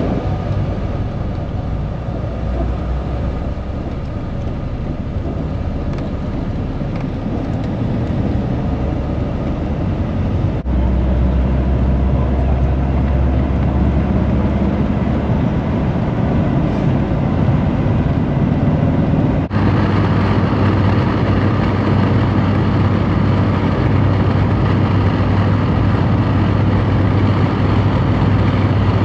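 Road noise inside a moving bus: a steady low rumble of engine and tyres. It changes abruptly twice, about ten and twenty seconds in, where separate recordings are spliced together.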